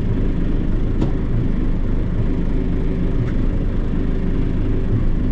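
John Deere 2755 tractor's four-cylinder diesel engine idling steadily, heard from inside the cab.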